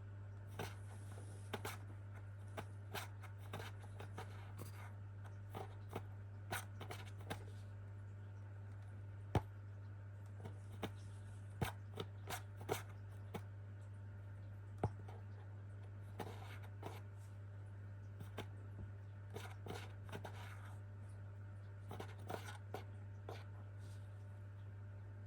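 A pet making its habitual wake-up noise: irregular sharp scratching clicks, some single and some in quick clusters, over a steady low hum.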